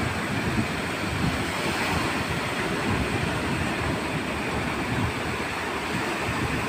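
Sea surf breaking and washing up over the sand in a steady, continuous rush, with wind buffeting the microphone.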